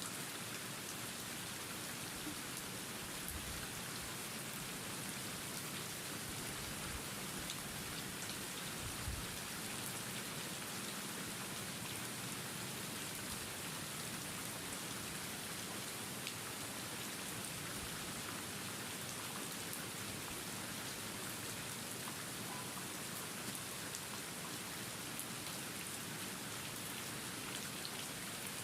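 Steady rain falling, an even hiss with scattered drop ticks and a faint low thud about nine seconds in.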